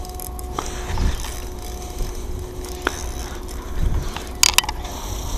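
Spinning reel being cranked against a hooked mullet, its gears whirring steadily with a few sharp clicks, over low wind rumble on the microphone.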